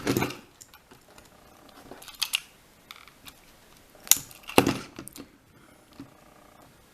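Scattered clicks and knocks of a plastic Trackmaster toy train being handled, with a few sharper taps around four to five seconds in.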